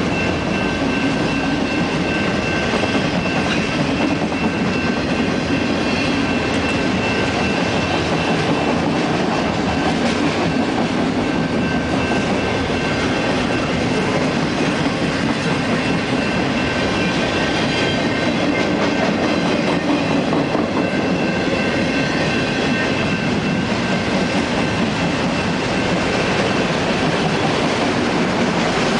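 Freight train of autorack cars rolling steadily past: continuous rumble and clatter of steel wheels on rail, with a thin, steady, high wheel squeal riding over it that is strongest in the first half.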